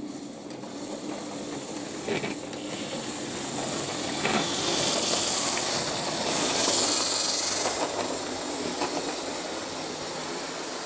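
Model railway train running past on the track: the motor's hum and the rumble of wheels on rails grow louder, peak as the coaches pass close by, then ease off. There are a couple of sharp clicks along the way.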